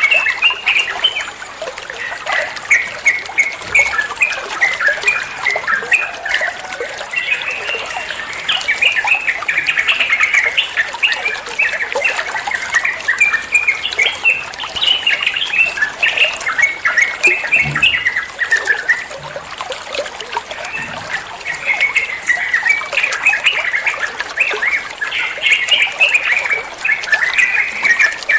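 Yellow-vented bulbul (trucukan) singing a rapid, chattering 'ropel' song: fast runs of bright notes in phrases with brief lulls between them.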